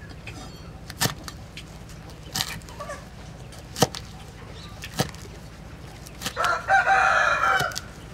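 A cleaver chops celery on a wooden board in a handful of separate, unhurried strokes. About six seconds in, a rooster crows loudly for over a second, the loudest sound here.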